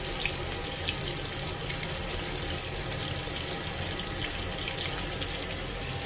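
Water pouring from the inlet of a Midea top-loading washing machine into the drum onto wet clothes, a steady splashing rush as the tub refills for the first rinse.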